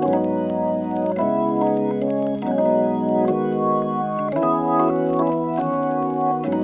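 Background music played on an organ: sustained chords changing every second or so, with no beat.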